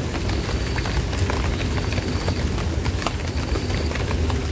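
Rain falling on banana leaves: a steady low rumble with scattered sharp ticks of drops striking the leaves, and a thin high steady tone above it.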